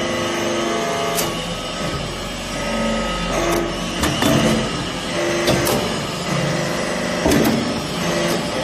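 Automatic metal-chips baler running, with a steady machine hum and repeated sharp metallic clicks and knocks.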